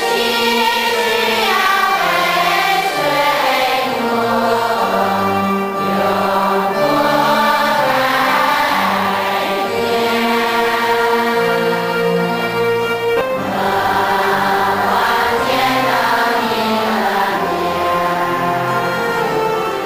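Church congregation, mostly women's voices, singing a hymn together in long held notes.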